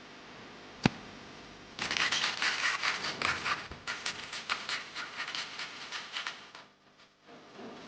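A single sharp click, then about five seconds of rapid, uneven scratching strokes, several a second, that stop suddenly.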